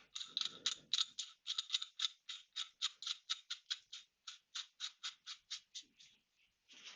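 Ratchet wrench clicking steadily, about five clicks a second, as a threaded fork part is wound in; it stops about six seconds in.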